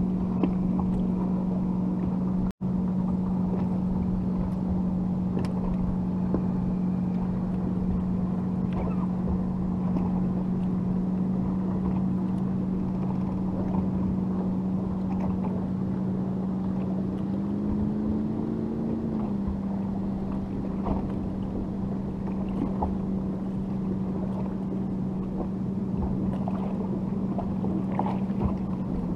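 Boat motor running with a steady hum. Its pitch rises slightly for a couple of seconds about two-thirds of the way in, then settles back. The sound cuts out for an instant about two seconds in.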